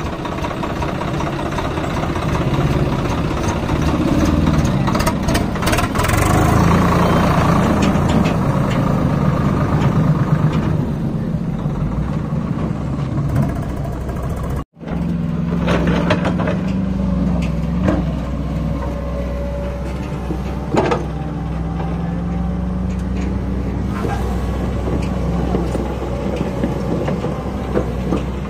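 Diesel engines running, the Swaraj 744 XT tractor's engine among them. The note rises and falls and swells in the first half. After a sudden break about halfway, a steady diesel drone carries on, with a few sharp knocks.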